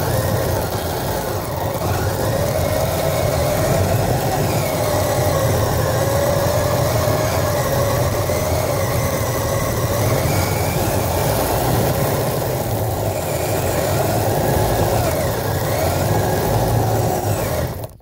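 Kyosho Blizzard SR RC snow vehicle driving, heard up close: its electric motor whines, rising and falling in pitch with the throttle, over the steady rumble of the drive and tracks.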